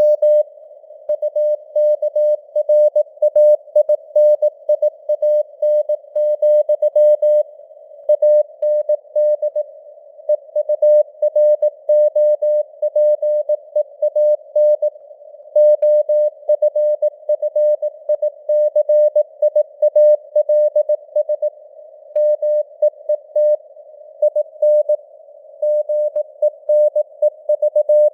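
Morse code at 18 words per minute: a single tone of about 600 Hz keyed on and off in dots and dashes, with short gaps between words, inside a narrow band of simulated radio hiss.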